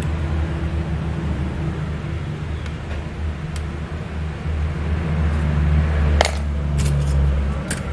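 Light metallic clinks and clicks as the stainless-steel shaping disc of a cookie press is swapped, the sharpest a few times in the last two seconds, over a steady low hum.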